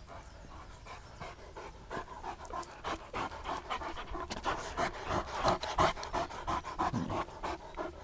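Saint Bernard dog panting quickly and rhythmically, picking up about two seconds in.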